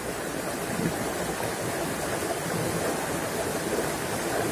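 Shallow rocky river running over stones: a steady rush of flowing water.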